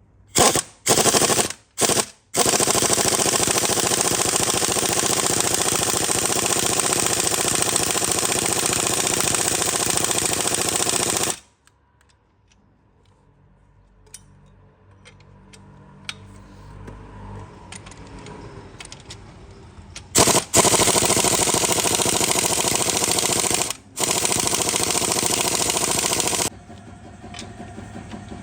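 Air tool running in loud trigger bursts: three short blips, then a long run of about ten seconds. After a lull it runs again for about six seconds; it is typical of a pneumatic impact wrench on suspension bolts.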